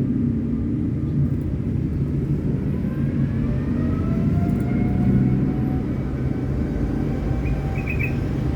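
Steady low engine rumble like nearby motor traffic, with faint whines that rise and then hold. A few quick high chirps come near the end.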